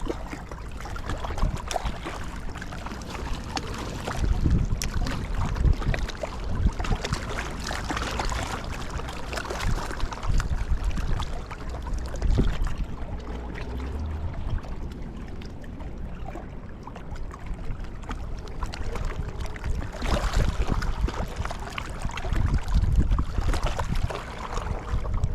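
Wind buffeting the microphone in gusts: a rough low rumble that swells and drops every few seconds.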